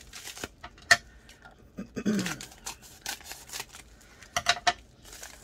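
Scissors snipping into a plastic mail package: a few sharp metallic clicks, one loud click about a second in and a quick run of three snips near the end.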